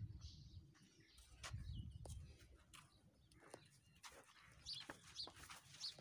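Near silence with faint farmyard sounds: scattered light knocks and low rumbling, and a few short bird chirps in the last couple of seconds.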